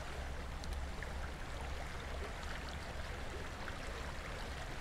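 Shallow river current running over rocks: a steady rush of flowing water.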